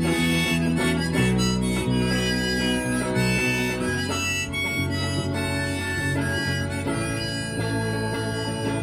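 Harmonica playing a blues melody of held notes over guitar chords that change every few seconds.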